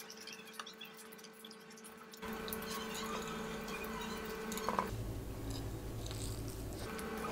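Close-up chewing of a mouthful of chicken biryani, with small wet mouth clicks. A steady background hiss comes up about two seconds in, and a low rumble joins it for a couple of seconds from about five seconds in.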